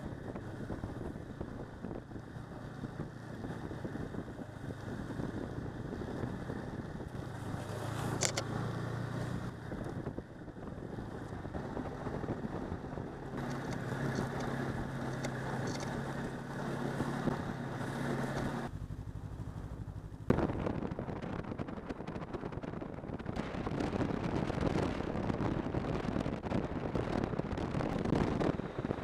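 Snowmobile engine running under way, with wind rushing over the microphone. About two-thirds of the way through the sound drops for a moment and comes back with a sharp knock.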